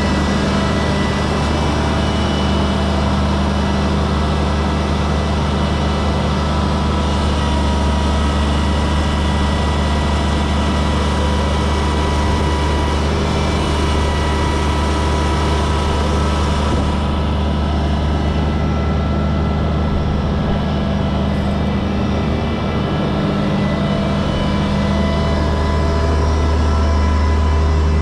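1997 GMC C7500 digger derrick truck running steadily: a low engine hum with several steady higher tones over it. The high hiss thins a little past halfway.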